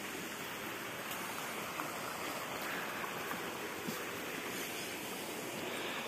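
Shallow creek water running steadily over a rock slab in a small cascade, a continuous even rush; the flow is not very strong.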